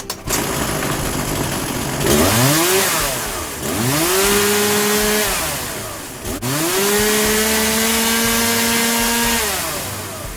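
Two-stroke gasoline chainsaw engine idling, then revved three times: a short blip, a longer one, and one held for about three seconds before dropping back. This is a test run after the saw's cylinder and piston have been replaced.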